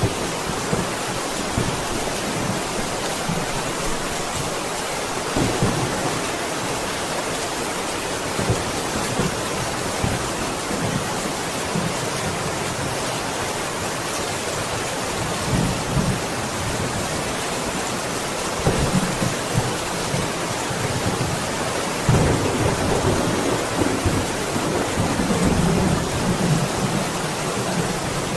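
Steady, heavy rain hissing, with thunder rumbling low several times: short rolls about a fifth and about half of the way in, and a longer, louder roll in the last third.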